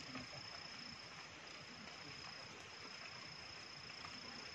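Night insects, crickets, keeping up a faint, steady high-pitched trill over a soft background hiss.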